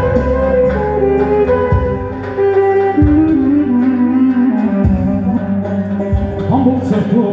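Live band instrumental: a clarinet plays an ornamented melody that bends between notes, over synthesizer keyboard chords and heavy bass hits.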